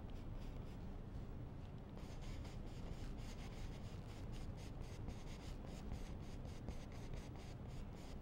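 Bristle paintbrush scratching oil paint onto a canvas in quick repeated strokes, which thicken from about two seconds in.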